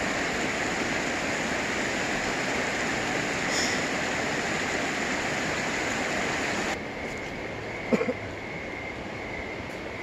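Truckee River rushing over shallow rapids, a steady wash of fast water. Nearly seven seconds in it cuts off suddenly to quieter surroundings with a steady high-pitched frog chorus and one brief sharp sound about a second later.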